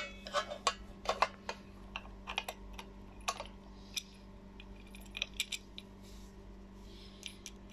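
Irregular small clicks and taps of a metal screw, washer and screwdriver against the plastic handle and aluminium lid of a pressure cooker as the handle is being screwed on, thickest in the first few seconds and again about five seconds in.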